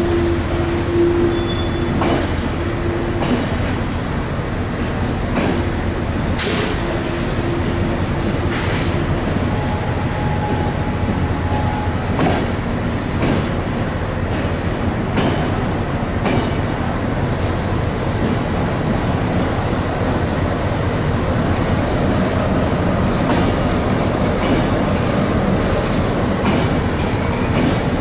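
Train of passenger coaches rolling slowly through a station: a steady rumble of wheels with irregular clicks over rail joints and a few brief wheel squeals. It grows louder near the end as the locomotive draws closer.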